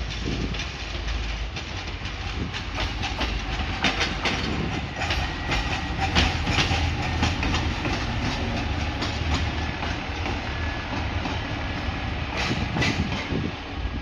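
Train running through a station yard: a steady low rumble of wheels on rail, with repeated clacks as wheels pass over rail joints and points, heaviest around a quarter of the way in and again near the end.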